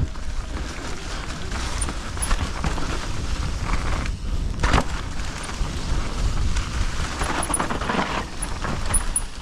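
Mountain bike riding down a dirt trail: a steady low rumble of wind and tyre noise, with sharp clatters of the bike over bumps, the loudest about five seconds in.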